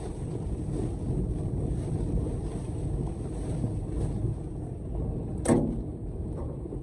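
Blizzard wind buffeting, a steady low rumble with no let-up, with one sharp knock about five and a half seconds in.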